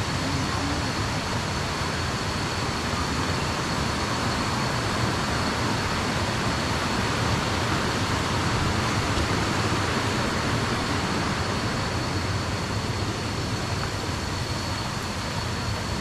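Waterfall cascades rushing in a steady, even roar of falling water, with a thin steady high-pitched tone above it.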